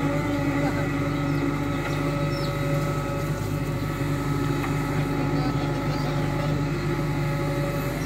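JCB 3DX backhoe loader's diesel engine running steadily under working load as the backhoe arm digs and swings its bucket.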